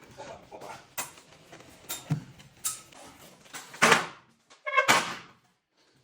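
A series of short knocks and clatters, the two loudest about four and five seconds in, then a brief hush.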